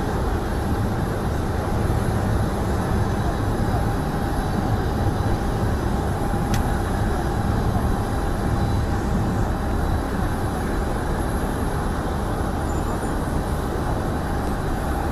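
Steady outdoor airshow ambience: an even low rumble with a faint constant whine, with a single faint click about six and a half seconds in.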